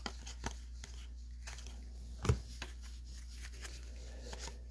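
Baseball trading cards being handled and flipped through one by one: faint scattered clicks and rustles of card stock, with one louder tap about two seconds in, over a steady low hum.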